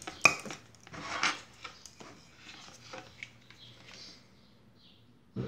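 Handling noise on a workbench as a reel of solder wire is picked up and handled: a sharp click at the start, a short rustle about a second in, then a few light taps and a dull knock at the end.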